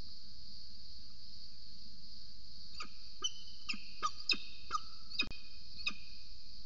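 Peregrine falcon giving a series of about eight short, sharp calls, starting about three seconds in and coming two or three a second, over a steady high hiss of insects.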